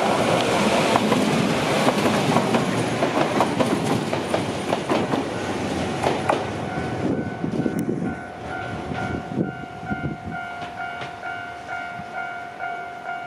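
Shizuoka Railway 1000 series electric train running past close by, its wheels clattering over the rail joints. The train then fades, and from about seven seconds in a level-crossing warning bell dings about twice a second.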